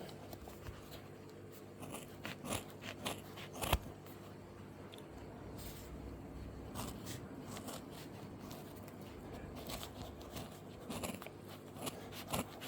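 Faint, scattered clicks, crinkles and scrapes of hands handling and cutting speaker-build materials, over a low steady hum.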